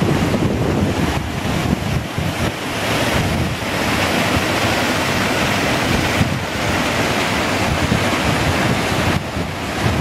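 Steady rush of a small waterfall and stream spilling over a rock ledge, with wind buffeting the microphone; the water's hiss grows brighter from about four seconds in.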